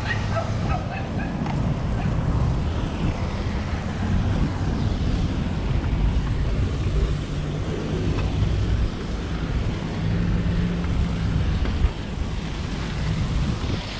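Steady low rumble of vehicle traffic mixed with wind noise on the microphone.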